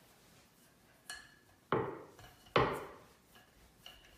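Wooden rolling pin knocking against a wooden cutting board while rolling out cookie dough: two loud wooden knocks in the middle, under a second apart, with fainter clicks about a second in and near the end.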